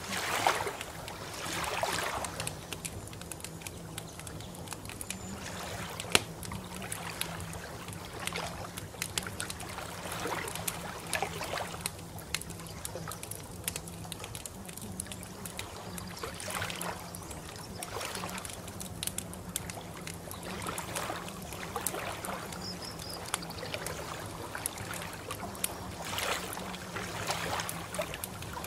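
Water lapping and trickling, swelling gently every few seconds with small splashy ticks, over a steady low hum.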